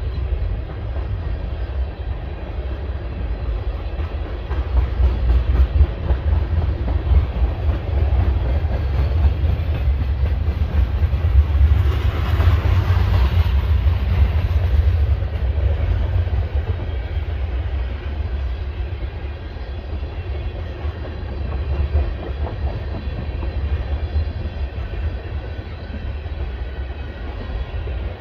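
Freight train's tank cars and covered hopper cars rolling past on the rails: a steady low rumble of wheels on track, with a brief brighter, louder rush of noise about halfway through.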